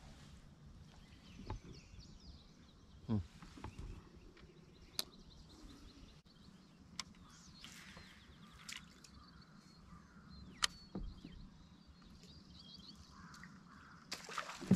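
Quiet outdoor ambience with small birds chirping, broken by a handful of sharp clicks and knocks a second or two apart.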